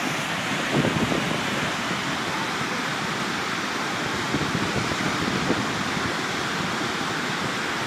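Tuolumne River whitewater rushing down a steep granite chute at the top of Waterwheel Falls, a steady full roar of water. There are a few low bumps of wind on the microphone, about a second in and again past the middle.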